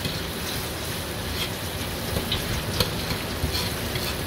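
Marinated meat sizzling hard in hot oil in a steel wok, a steady crackling hiss, while a steel ladle stirs it, with a few short clinks and scrapes of the ladle against the wok.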